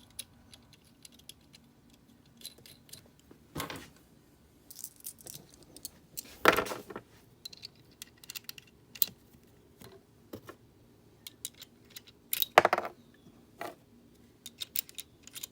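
Small steel hardware clinking and clicking as new cylinder nuts are handled and fitted onto the cylinder studs of a Yamaha Banshee engine, with two louder metal clanks that ring briefly, about six seconds in and near the end.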